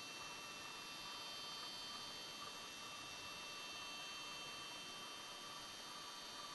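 Black grouse cocks at a lek: a faint, continuous bubbling chorus of the displaying males, like a hum, under a steady high-pitched electronic whine.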